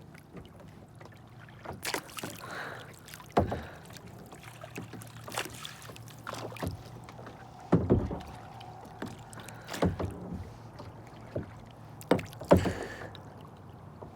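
Kayak moving on the water: sharp splashes and knocks every second or two over a low steady background.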